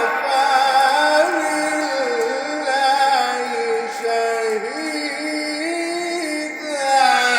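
A man's voice in melodic Quran recitation, holding one long ornamented note whose pitch winds slowly up and down without a break.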